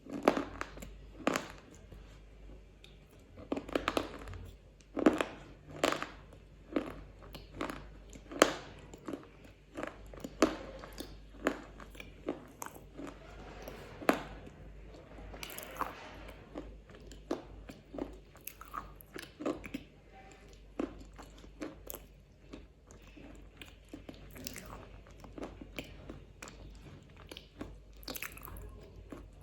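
Close-miked eating sounds: a black KitKat wafer bar being bitten and chewed, with sharp separate crunches about one or two a second, some louder than others.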